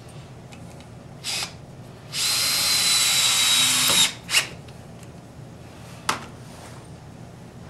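Festool cordless drill/driver driving a screw: a brief blip about a second in, then a steady run with a high whine for about two seconds, ending in two short bursts, and a single click near the end.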